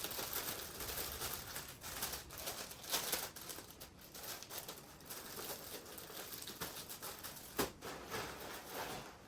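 Rustling and crinkling of plastic packaging and clothes being handled, with an irregular patter of small handling noises and one sharp click a little past halfway.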